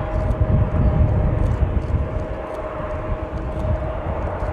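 Antonov An-225 Mriya's six turbofan engines at takeoff thrust as the aircraft climbs away. They make a deep rumble, loudest in the first second or two, with a steady whine above it.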